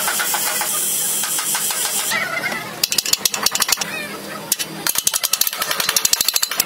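Gas torch hissing steadily as solder is run along the brass top tank of an old copper-core radiator. About two seconds in it stops and gives way to rapid metal-on-metal tapping, several strikes a second in two runs, as a rod set in the tank's filler-neck opening is hammered.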